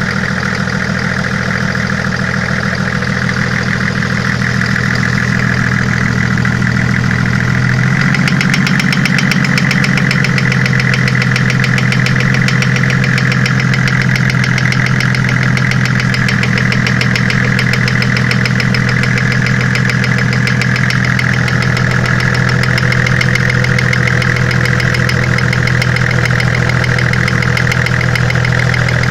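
Toyota 1HZ inline-six diesel in a Land Cruiser 105 idling with a fast, even knocking clatter, which the owner puts down to an injector. About eight seconds in, the engine note steps up slightly and the ticking grows sharper.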